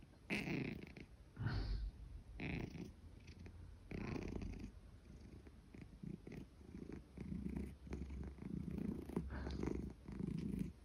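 Tabby cat purring while being scratched under the chin, the purr swelling and fading with each breath about once a second.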